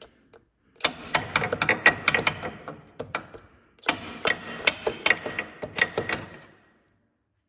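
Hammer rapidly tapping on a stuck lower control arm bolt to drive it out, in two runs of several sharp metallic strikes a second with a slight ring, separated by a short pause about three seconds in.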